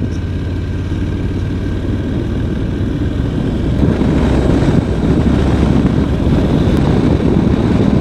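Honda NC750X parallel-twin motorcycle engine running on the move, with a steady rush of wind and road noise that grows a little about halfway through.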